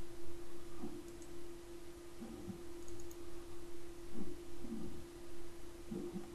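Computer mouse clicking: a few faint, short clicks, some in quick pairs, and soft low taps at irregular intervals. A steady low electrical hum runs underneath.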